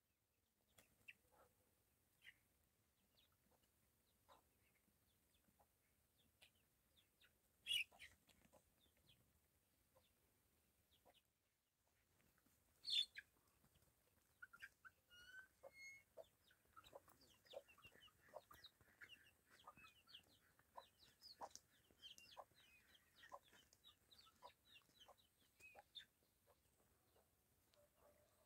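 Chickens clucking faintly, becoming a busier run of clucks and short chirps in the second half. Two louder short, sharp sounds come before that.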